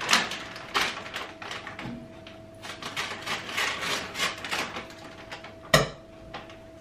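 Plastic bag of okra crinkling and rustling in irregular bursts as it is handled and opened, with one sharp knock near the end. A faint steady hum runs underneath.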